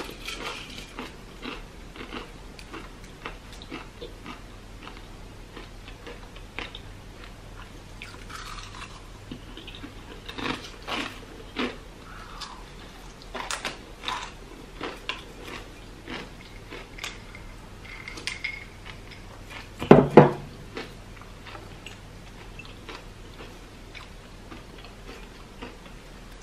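Crunchy plantain chips being bitten and chewed up close, with chips clinking in a glass dessert bowl as she picks at them. One louder thud comes about twenty seconds in.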